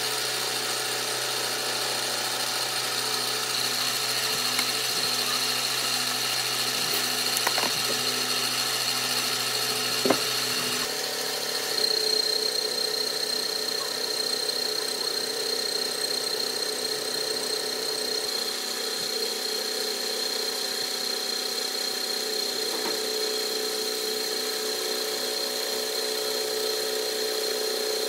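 A workshop power tool running steadily with a high-pitched whine. Its tone shifts about eleven seconds in and again around eighteen seconds, and there are a couple of sharp knocks before the first change.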